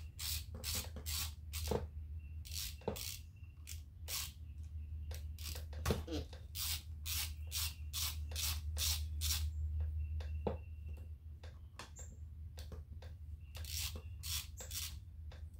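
Socket ratchet clicking in runs of about three clicks a second, with a short lull past the middle, as a 5/32 Allen socket threads the lifter anti-rotation pins into a Harley Sportster engine's lifter block. A steady low hum runs underneath.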